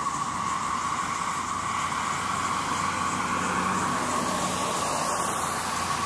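Chorus of periodical cicadas of the 13-year Brood XIX: a loud, steady droning whir held on one pitch, with a fainter hiss above it.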